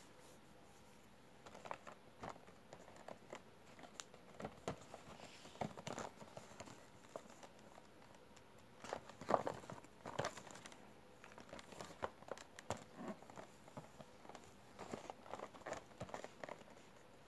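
Faint handling noise of a cardboard model-aircraft display box being turned over in the hands: scattered rustles, taps and scrapes of card, loudest about halfway through.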